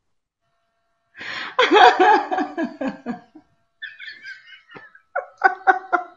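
A woman and a man laughing heartily, starting about a second in, in several bursts of quick rhythmic ha-ha pulses.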